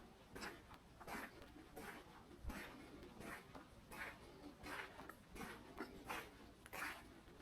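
Slow, even footsteps crunching softly on a dirt forest path, about one step every three quarters of a second.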